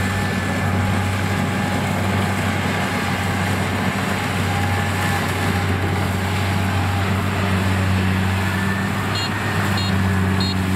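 Kubota rice combine harvester running steadily as it cuts and threshes ripe rice: a constant low engine hum under an even mechanical rush.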